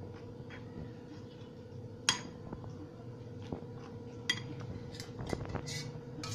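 A metal spoon clinking and scraping against a bowl as flour and ghee are mixed. There is a sharp clink about two seconds in, another about four seconds in, and a run of lighter clicks near the end, over a faint steady hum.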